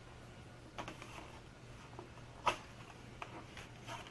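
Faint handling of a foam board fuselage: a few light clicks and rubs as it is turned in the hands, the sharpest about two and a half seconds in, over a low steady hum.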